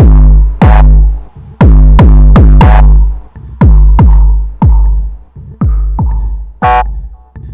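Electronic background music: heavy bass drum hits about once a second with short synth stabs, the beat thinning out in the last couple of seconds.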